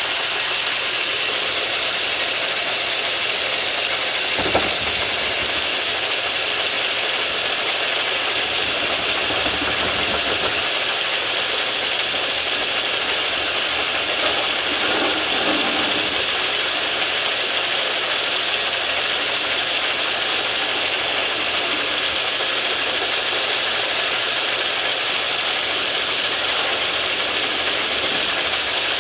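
Metal lathe running steadily with a thin high whine and a constant rattle of its drive, while a tool trims the end of a brass piston blank down to length.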